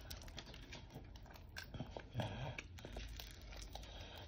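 Fried chicken wing being pulled apart and bitten, its crisp breading crunching in a run of quick, irregular crackles.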